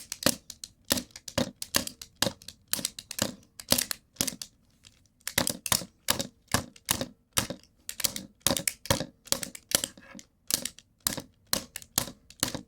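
A plastic remote control taking a rapid, irregular run of sharp clicks and knocks, about two to three a second with a short pause around five seconds in, as its casing is bashed and broken apart.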